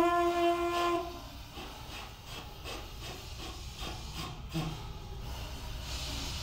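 Conch shell trumpets blown by a group: one shell sounds a loud held note for about a second, then the sound turns to quieter breathy blowing with short sputtering notes from several shells.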